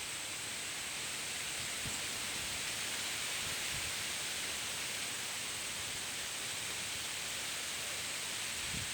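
Steady white-noise hiss for sleeping, even and unchanging, with most of its energy high up.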